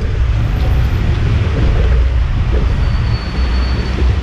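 City traffic noise heard from a moving bicycle on a wet street, under a heavy, steady wind rumble on the helmet-mounted camera.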